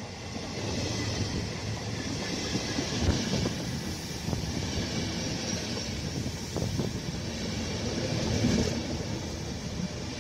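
Electric locomotive-hauled passenger train passing close at speed: a steady rumble of wheels on rails that swells over the first second as the locomotive arrives, with a few sharp wheel clacks as the coaches roll by.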